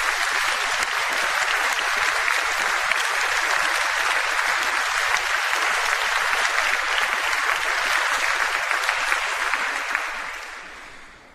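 Applause from an audience and the choir on stage: many hands clapping steadily, then dying away near the end.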